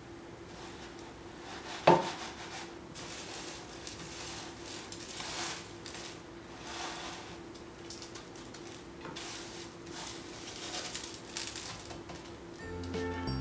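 Small crunchy chocolate and caramel nut crunch pieces rustling and crackling in an enamel tray as a hand presses and rolls a chocolate-coated cake bar in them, in repeated soft swells. A single sharp clack about two seconds in is the loudest sound.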